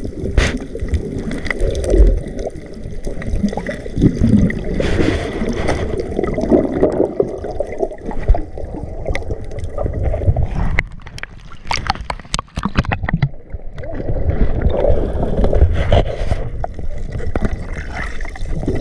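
Water gurgling and sloshing against the microphone, with a cluster of sharp clicks and knocks about two-thirds of the way through.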